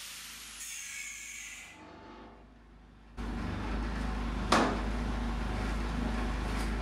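Angle grinder spinning down after cutting steel studs: its high whine falls in pitch and fades over the first couple of seconds. After a short lull a steady low hum starts about three seconds in, with one sharp click about a second and a half later.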